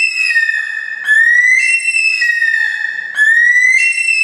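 Bush stone-curlew crying: a loud, repeated whistled call, a new phrase about every two seconds, each rising in pitch and then dropping back down.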